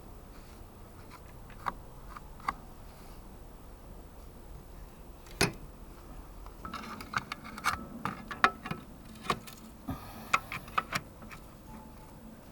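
Metal hand tools clinking and knocking as they are handled, with one sharp clack about halfway through and a run of quick irregular clicks in the second half.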